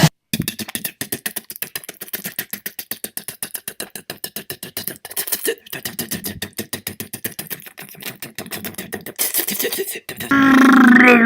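Vocal sound effects made with the mouth: a long run of rapid clicks, several a second, mimicking factory machinery. Near the end a loud voiced drone with a bending pitch starts.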